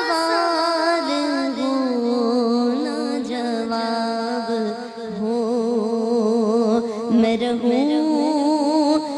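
A solo voice singing an Islamic devotional hamd or naat in long, drawn-out phrases, the held notes wavering and ornamented.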